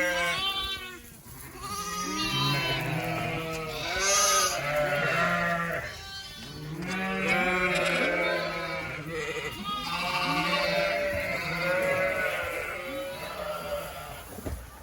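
A barn full of sheep and lambs bleating, many calls overlapping without a break, with a low steady hum underneath.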